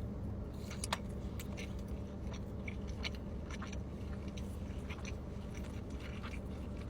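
A person biting into and chewing chicken tenders close to the microphone: scattered short crunches and mouth clicks over a low steady background hum.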